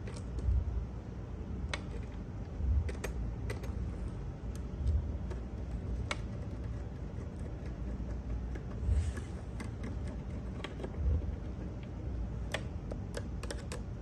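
Hand screwdriver turning a screw into a smart lock's metal back plate on a door: scattered light clicks and taps, with a few low thuds spread through.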